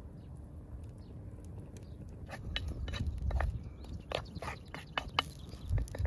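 A wood cooking fire under a large steel pan of heating vegetable oil, giving a run of sharp, irregular crackles and pops from about two seconds in, over a steady low rumble.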